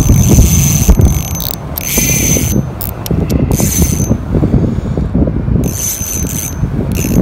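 Spinning reel being cranked in short spells, its gears whirring, while reeling in a hooked fish. Wind rumbles on the microphone underneath.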